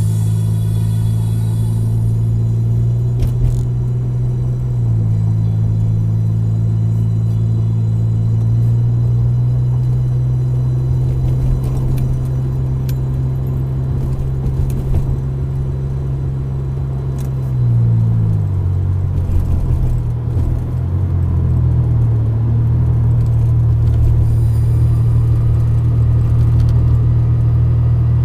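Road rumble inside a car accelerating to highway speed. Under it runs a loud low drone that holds one pitch for several seconds, then steps or slides to another every few seconds.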